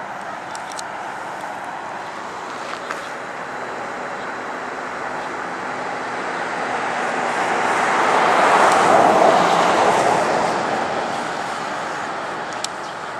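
A vehicle passing on a nearby road: its noise swells over several seconds to a peak about nine seconds in, then fades, over steady outdoor background noise.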